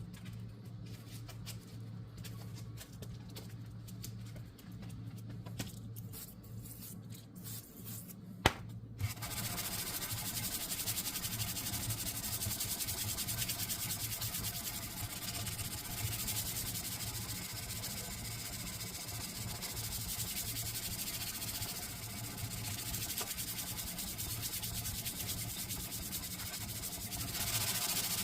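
Sanding on a forged steel blade: a steady scratchy rubbing that starts about nine seconds in, just after a sharp click, over a low steady hum.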